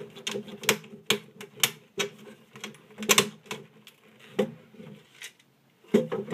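Irregular clicks, knocks and rattles of a circuit board being rocked and pried out of a Sanyo home DVD player's metal chassis, the board and its holding clips knocking against the case.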